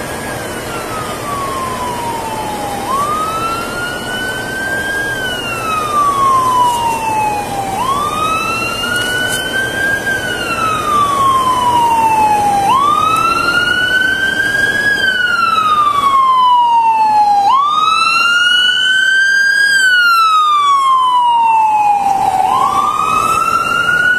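An emergency vehicle's siren wailing, each slow rise and fall taking about five seconds, growing steadily louder.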